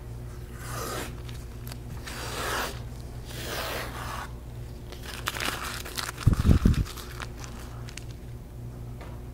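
Tape being peeled off the edge of an illustration board in several rasping pulls, each lasting up to a second. A short cluster of loud low thumps comes about six seconds in.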